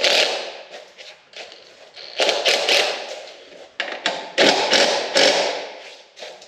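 Cordless impact driver hammering bolts into a dirt bike's subframe in short rattling bursts, about three in a row, as the bolts bind and won't line up.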